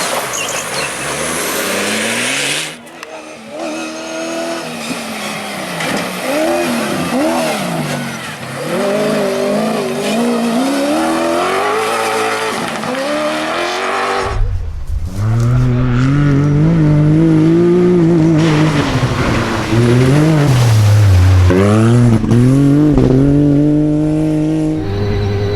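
Cross-country rally car engines at full race pace, the engine note climbing and dropping again and again through gear changes and lifts. The sound changes abruptly a few times as different vehicles are cut together, with a deeper, louder engine in the second half.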